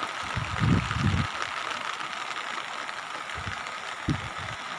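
Steady rushing noise of a flooded river's fast-flowing water, with a few low rumbling bumps, one near the start and two more towards the end.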